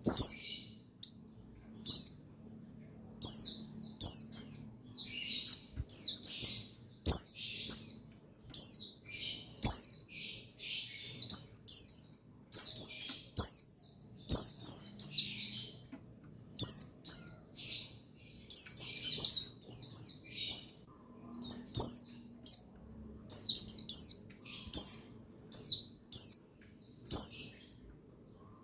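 Pleci buxtoni white-eyes chirping and twittering: quick runs of short, high, falling notes, one after another, with brief pauses between runs.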